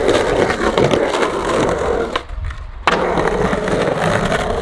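Skateboard wheels rolling loud and steady over a concrete skatepark, then dropping out for about half a second before coming back with a sharp landing smack and rolling on.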